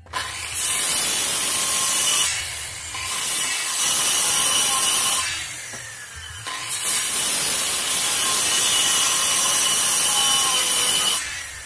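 Makita handheld circular saw running and cutting into a timber board in three passes, its motor whine steady under the noise of the blade chewing wood. The sound drops briefly about two seconds in and again around six seconds while the saw is lifted and moved, then runs on until just before the end.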